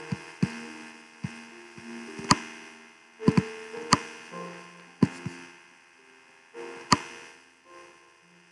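About ten sharp, irregular clicks or knocks, the loudest in the middle, over faint held tones at changing pitches like soft background music.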